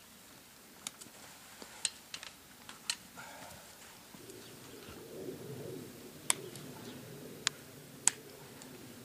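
Hoof nippers snipping the overgrown hoof wall of a cow: a series of sharp snaps, several in the first three seconds and three more near the end, with some low rustling in between.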